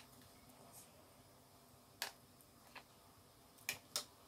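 A metal spoon clicking against a plate: four light, short clicks, the first about two seconds in and the last two close together near the end.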